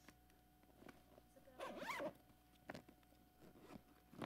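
Zipper on a clear plastic bag being zipped shut: one quick, faint pull a little over a second and a half in, with a few soft clicks and rustles of the bag around it.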